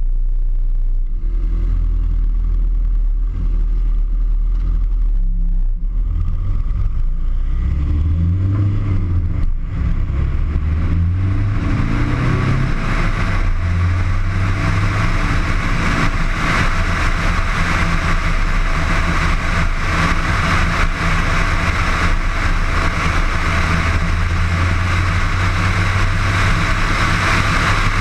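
Steady low rumble of a running vehicle engine. About twelve seconds in, a rushing, hissy noise builds on top of it and keeps going.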